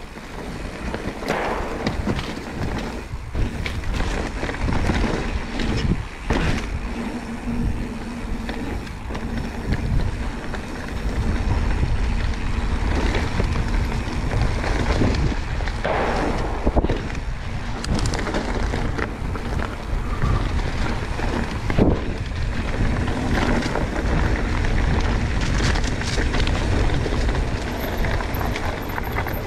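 ProPain Tyee enduro mountain bike riding a dirt trail: tyres rolling over the ground with frequent knocks and rattles from the bike over roots and bumps, and wind rumbling on the microphone.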